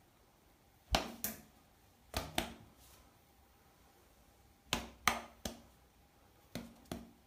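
Sharp taps on a glass panel, coming in quick pairs a second or two apart, with one set of three.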